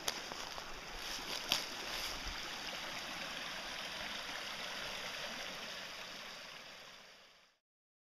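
Steady outdoor rushing hiss, with a single sharp click about a second and a half in, fading out near the end.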